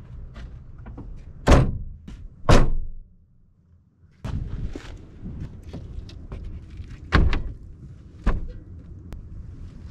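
A van's two rear cargo doors slammed shut one after the other, about a second apart. After a short lull come wind noise and a couple of sharper thuds as someone climbs in through the side door onto the wooden floor.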